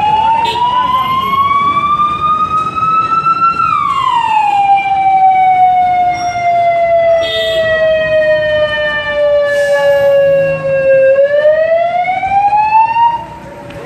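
Fire engine siren wailing: its pitch climbs, drops sharply about four seconds in, sinks slowly, then climbs again and cuts off suddenly near the end.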